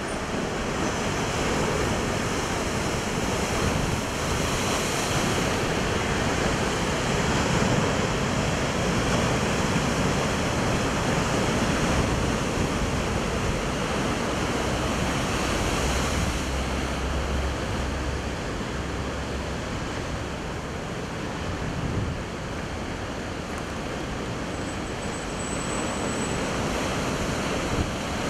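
Heavy surf: large waves breaking over the boulders of a rocky shore and washing back, a continuous rushing noise that swells and eases from wave to wave.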